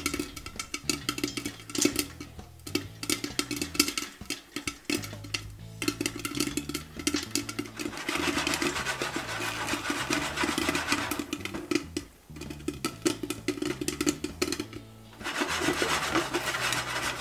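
Corn kernels popping fast inside a lidded stainless-steel pot with a glass lid, a dense run of sharp pops. Twice, about eight seconds in and again near the end, the pot is shaken back and forth on the burner, and the popped corn and kernels rattle against the pot and lid.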